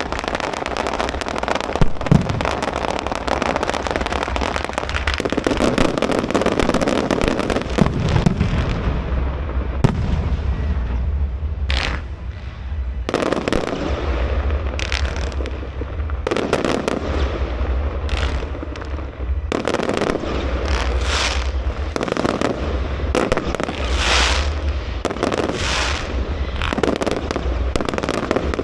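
Fireworks display going off: a dense wall of crackling bursts for the first several seconds, then separate shells bursting one after another, many trailing into crackle.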